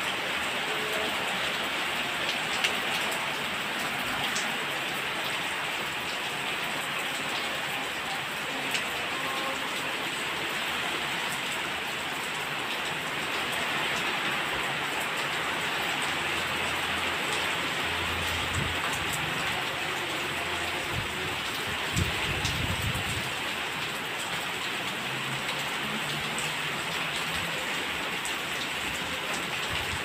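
Heavy rain falling steadily: a dense, even hiss of rain hitting wet ground, puddles and leaves, with a few sharp drop ticks. A low rumble comes in for several seconds a little past the middle.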